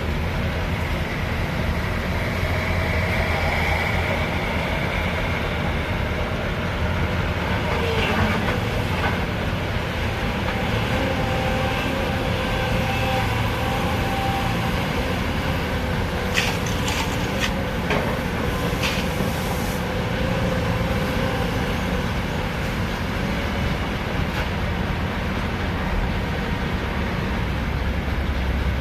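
Sany excavator's diesel engine running steadily under work, with a faint whine through the middle and a few sharp knocks about two-thirds of the way through.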